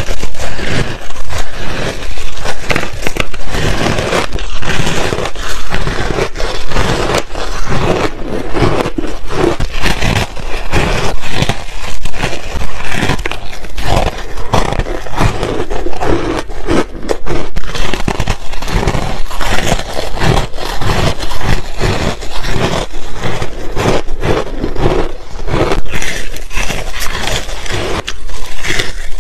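Freezer frost ice being bitten and chewed close to a clip-on microphone: a dense, unbroken run of crisp crunches and crackles.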